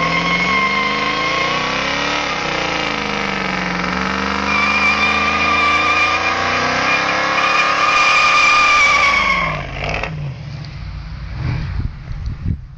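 Chevrolet Camaro Z28's V8 held at high revs in a burnout, the rear tyres screeching with a steady high squeal over the engine. After about nine and a half seconds the squeal stops and the engine drops back to a lumpy low running with a few short revs.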